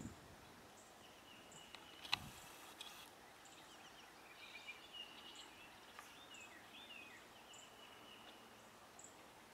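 Faint outdoor birdsong: several small birds chirping and trilling, with short high calls repeating every second or so. There is one sharp knock about two seconds in.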